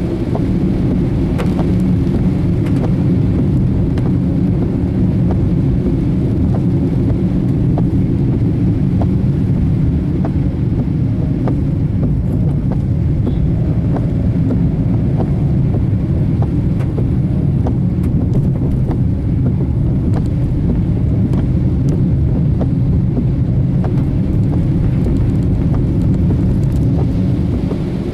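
Steady low rumble of a vehicle driving, road and engine noise heard from inside, with scattered faint clicks over it.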